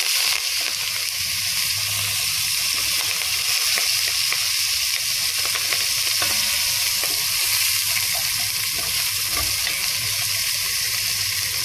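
Sliced red onions, curry leaves and cumin seeds sizzling steadily in hot ghee, stirred with a wooden spatula, with scattered light clicks of the spatula against the pot.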